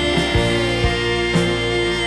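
Background music: an instrumental passage of a song with held notes over a steady beat, and no singing.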